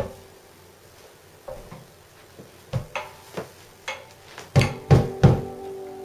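Homemade walking-stick banjo sounded in a sound test: a knock at the start, then a series of sharp strokes on the strings that grow louder. The last three come close together about halfway through and leave a chord ringing.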